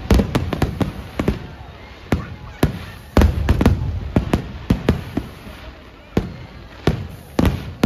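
Fireworks display going off: a rapid, irregular string of sharp bangs and crackles over a low rumble of booms, the loudest cluster about three seconds in.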